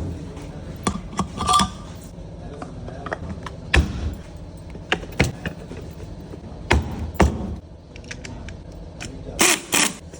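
Irregular metallic clinks and knocks of metal parts and tools being handled in a fan workshop, over a steady low machine hum.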